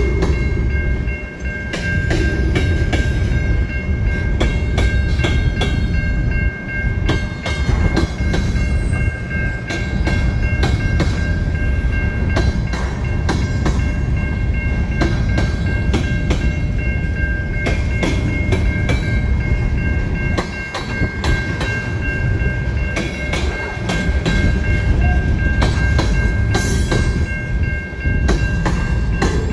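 Covered hopper cars of a long freight train rolling past at close range: a steady rumble of steel wheels on rail, with frequent clicks and clunks as the wheels cross joints. A steady high whine runs over it.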